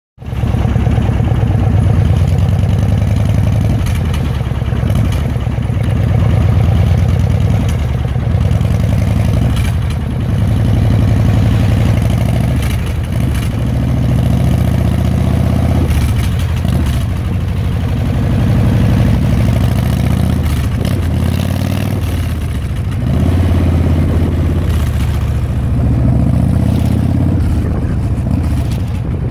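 Motorcycle engine running while riding, its pitch rising and falling with the throttle and dipping several times as it slows and picks up again.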